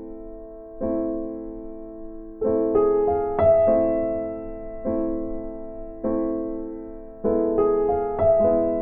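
Background music: a slow, gentle piano or electric piano, chords struck about once a second and left to die away, with a few higher notes in the middle.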